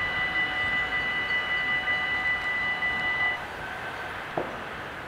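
Dutch AHOB level-crossing bells ringing steadily while the half-barriers rise after the train has passed, stopping abruptly about three and a half seconds in as the booms come fully up. A brief squeak follows near the end.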